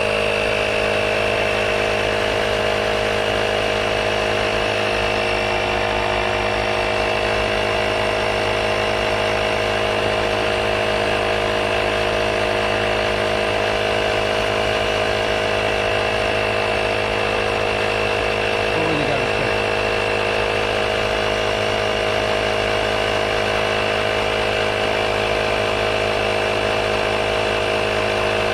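Portable electric tire inflator pump running steadily, pumping air into the repaired car tire.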